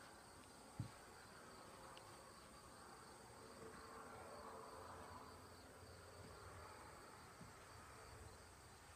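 Near silence: quiet room tone with a faint steady high whine and one soft bump a little under a second in.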